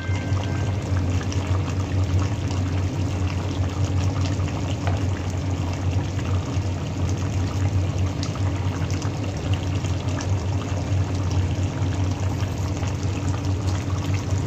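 Chicken kaldereta stew simmering in a pan, its sauce bubbling with small pops, over a steady low hum.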